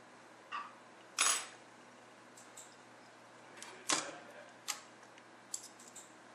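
Light metal clinks and clatters as a laptop's copper heat-pipe heatsink is worked loose from the motherboard and handled, with two louder knocks about a second in and about four seconds in, and a few small ticks near the end.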